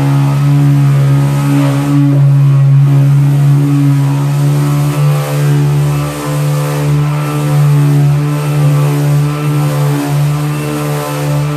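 Ryobi 18-volt cordless 5-inch random orbit sander running steadily with a low hum, its coarse disc sanding down wood.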